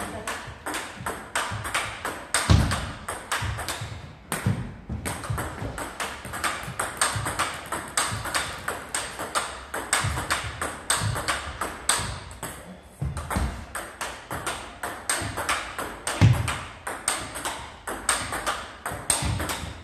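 Table tennis rally: quick, sharp clicks of the ball striking paddles and the table, several per second, as forehand drives are hit back and forth. A few low thuds fall among the clicks.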